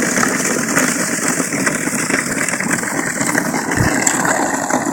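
Plastic ride-on toy bulldozer sliding down a snow-covered street, a steady scraping hiss, with a low thump about four seconds in.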